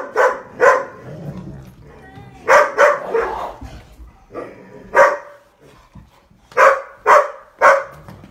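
Dog barking during rough play: about ten short, sharp barks in clusters with pauses between.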